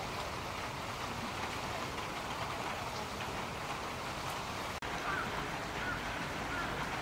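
Steady rain falling, an even hiss that cuts out for an instant about five seconds in.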